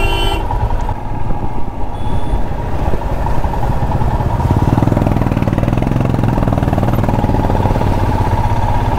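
Motorcycle engine running as the bike rides through slow traffic; about four and a half seconds in, its sound grows stronger. A vehicle horn sounding at the start cuts off within the first half second.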